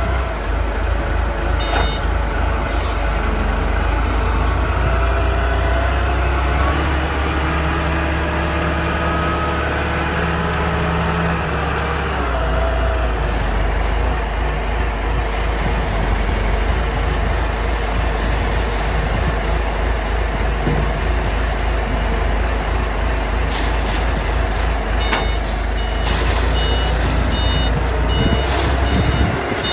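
Lai Gong H30 self-loading concrete mixer's diesel engine running steadily with a deep rumble. In the last few seconds its reversing alarm starts beeping in an even repeating pattern.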